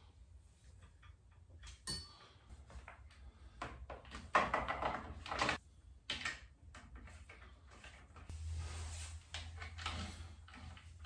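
Workshop handling noises: scattered knocks and clicks, with a noisy burst lasting about a second roughly four seconds in and a longer, quieter noisy stretch near the end.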